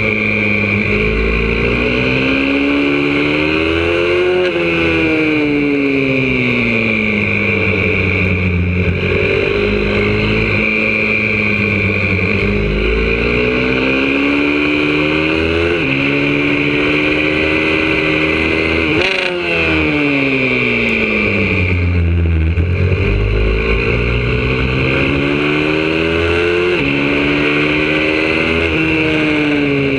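YCF 125cc four-stroke pit bike engine heard from on the bike at full throttle round a track. The revs climb and drop again and again: short sudden drops as it changes gear, and longer falls as it slows for corners.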